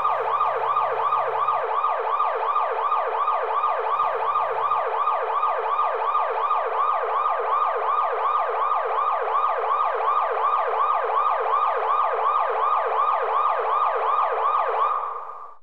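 Emergency-vehicle siren in a fast yelp: a rising sweep repeating about four times a second, fading out near the end.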